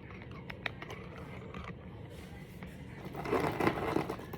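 A few light clicks of Brain Flakes plastic discs being pushed together, then a louder scraping rustle near the end as the pieces are handled.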